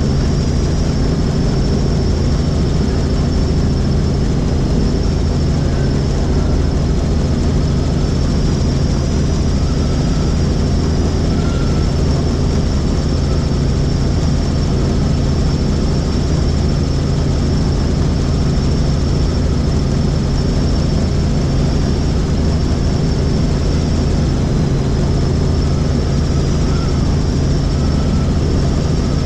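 Helicopter in cruising flight: a steady, unchanging mix of engine and rotor noise, with a thin high whine held throughout.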